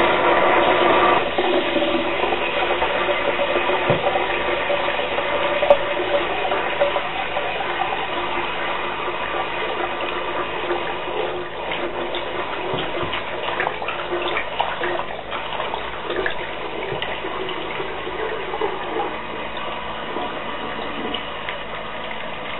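Toilet flushing and refilling: rushing water with a steady whine of several pitches over it. It is loudest in the first second, then slowly grows quieter.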